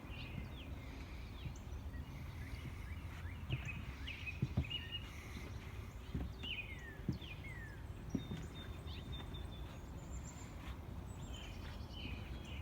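Birds chirping in short downward-sweeping calls scattered throughout, over a low steady background rumble.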